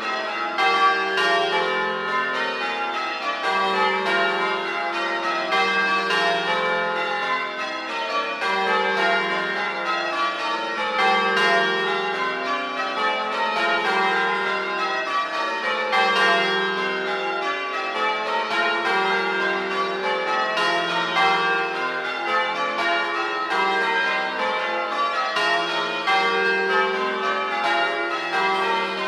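The 1954 Gillett and Johnston ring of eight church bells being change rung: bells struck one after another in an even, unbroken rhythm, their mellow tones overlapping as each rings on.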